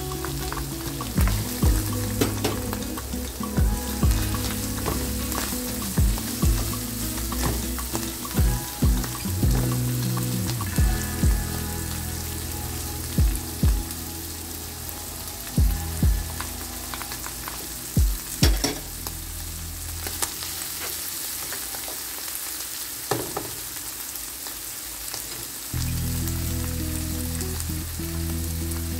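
Minced meat and vegetables sizzling in a frying pan, with repeated sharp knocks of a wooden spatula as chopped vegetables are pushed off a plate into the pan and stirred.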